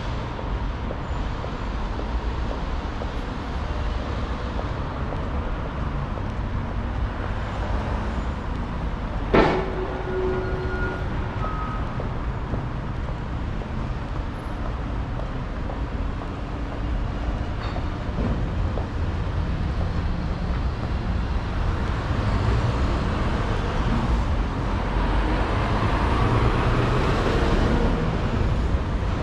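City street ambience: a steady low traffic rumble. A single sharp knock about nine seconds in rings briefly, and traffic grows louder toward the end.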